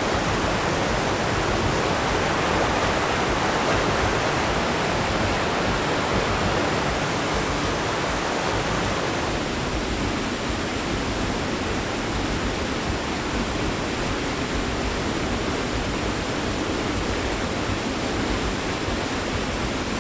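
Dynjandi, a large waterfall, giving off a steady, loud rush of falling water.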